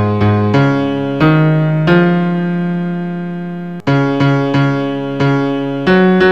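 Keyboard with a piano sound playing the bass part of a hymn one note at a time, as a part-learning track. Short notes step upward, then a long note is held from about two seconds in, and after a brief break near the four-second mark a steady run of short notes follows.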